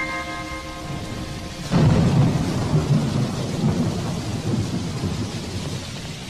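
Steady rain with a clap of thunder breaking about two seconds in and rumbling slowly away. A held musical chord dies out just before the thunder.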